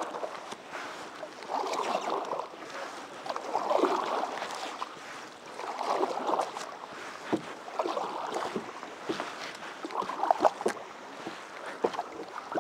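Paddle strokes in lake water from a canoe's double-bladed paddle, with its red plastic blades and aluminium shaft, swishing and splashing about once every two seconds. A few sharp knocks come in the second half.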